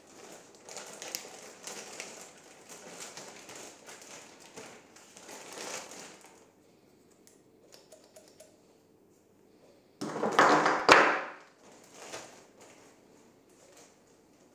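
Clear plastic packaging crinkling and rustling in the hands as a tool accessory is unwrapped. About two-thirds of the way through comes a loud, dense burst of crinkling lasting about a second.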